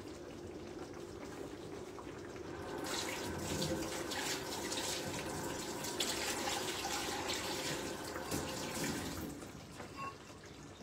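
Kitchen tap running water into a sink for about six seconds, turned on about three seconds in and off near the end.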